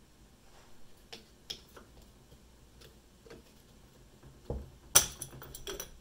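Scattered light clicks and taps of a screwdriver working on a car alternator's rear housing as small plastic and metal parts are pried loose. About five seconds in comes one sharp clack, followed by a short rattle of loose parts.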